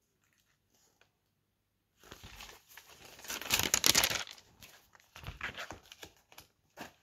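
Sheets of printed die-cut paper rustling and sliding as they are handled and turned over. The rustle starts about two seconds in, is loudest around the middle, and is followed by a few lighter rustles.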